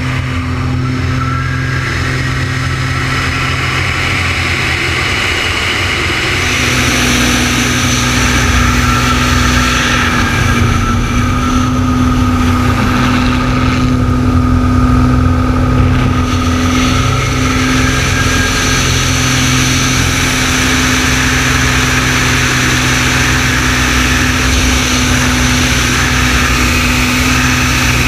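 An Extra 300L aerobatic plane's engine and propeller running steadily at power, heard through a camera mounted on the airframe along with the rush of air. About six seconds in, the engine note steps up a little and the airflow hiss grows louder.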